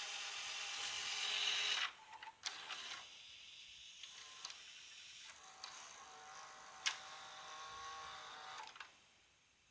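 Panasonic NV-HS950 VHS recorder's tape-loading mechanism running: a motor-and-gear whir that stops with a few clicks, then runs again more quietly with a sharp click partway through, before stopping near the end. The deck has a loading fault (F05) in which the tape won't start or eject.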